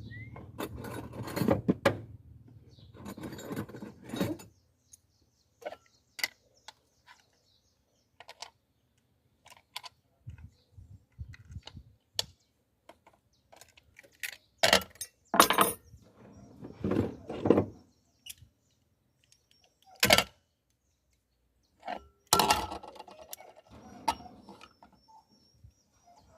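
A metal pressure cooker and its parts being handled: irregular clinks, knocks and clatters, some loud and sharp, with a low hum in the first few seconds.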